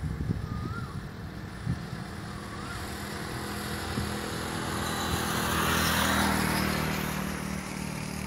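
Steady engine rumble that swells into a broad rushing noise, loudest about six seconds in, then eases. Two short chirps come in the first three seconds.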